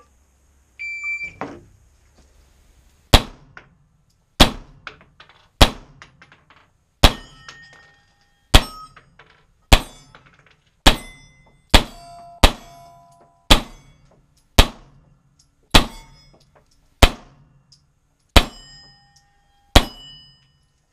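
An electronic shot timer beeps about a second in, then a pistol fires about fifteen single shots, roughly one every second and a quarter. Many shots are followed by the short ring of a steel plate target being hit.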